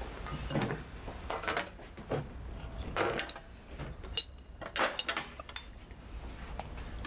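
Crockery and a tray being handled: a string of light clinks and knocks, some with a short ring, from a china cup and saucer and a tray of biscuits.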